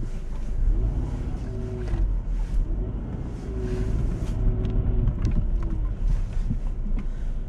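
Car driving slowly, heard from inside the cabin: a steady low engine and road rumble, with a faint engine note that rises and falls a few times.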